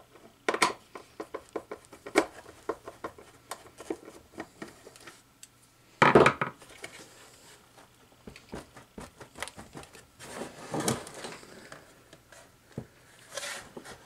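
Hard plastic base housing of a Bissell PowerGlide Pet upright vacuum being handled and pried at by hand: a run of small clicks and knocks, a louder clatter about six seconds in, and a longer rustle around eleven seconds.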